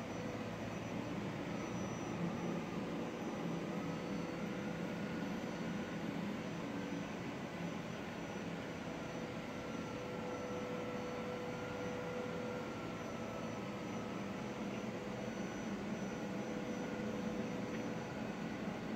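Steady outdoor background hum of distant machinery, with a faint whine that wavers slowly in pitch.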